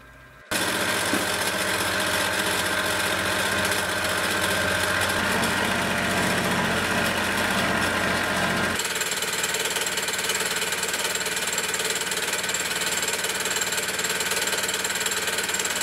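Benchtop milling machine face-milling a steel offcut: a steady machining noise of the spinning cutter and spindle motor. It starts abruptly about half a second in, and about nine seconds in it turns thinner, losing its low end, with a high whine coming through.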